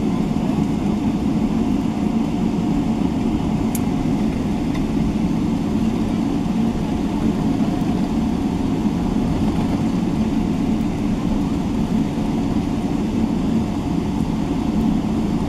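Steady engine noise heard inside the cabin of a Boeing 777-300ER taxiing on the ground: its GE90 engines running at idle thrust as a low, even rumble with a faint steady tone above it.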